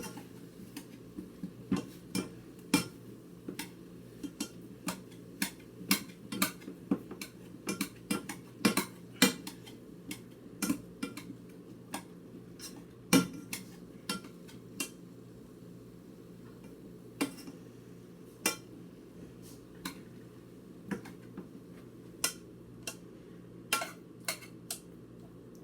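A fork clinking and scraping against a pan while mashing cooked sweet potatoes, in irregular knocks that come thick in the first half and thin out later. A faint steady hum sits underneath.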